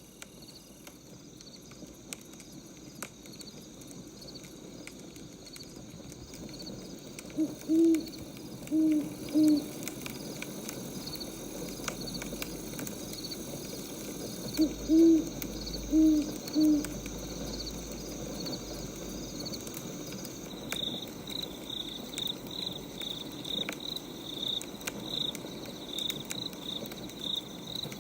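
An owl hooting in two short series of low hoots, against steady cricket chirping that grows louder near the end and scattered crackles of a burning wood fire.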